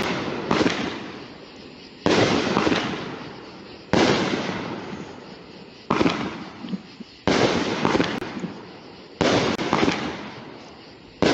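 Revolver multi-shot aerial firework cake firing shot after shot, about seven bangs roughly every one and a half to two seconds, each sudden and fading out over a second or so.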